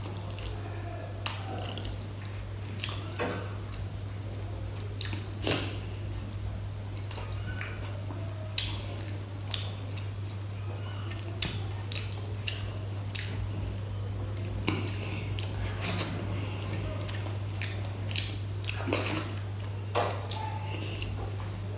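Close-up eating sounds of kadi and rice eaten by hand: wet chewing and mouth smacks, and fingers squishing rice into kadi on a steel plate. Scattered sharp clicks, over a steady low hum.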